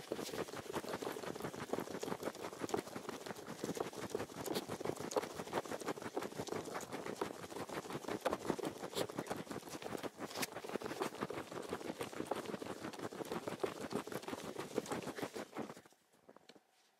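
Footsteps crunching in packed snow, a dense, continuous crunching that stops suddenly near the end.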